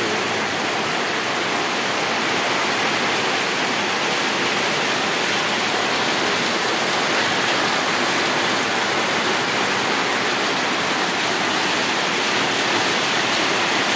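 Heavy downpour: dense rain falling on the ground and roof in one steady, even hiss.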